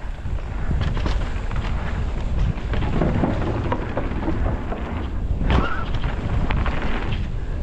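Mountain bike being ridden down a dirt trail: wind buffeting the camera microphone as a steady low rumble, with the bike rattling and knocking over the ground in scattered clicks. There is one louder knock about five and a half seconds in.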